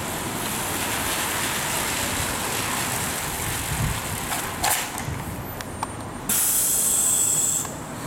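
A city bus's air brakes releasing a loud, sharp hiss of compressed air for over a second, starting and stopping abruptly, as the bus pulls up. It follows steady wind and street noise and a short knock.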